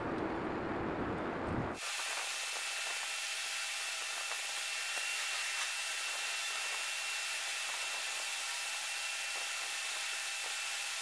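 A steady hiss with a thin, high, steady whine running through it, cutting in suddenly about two seconds in.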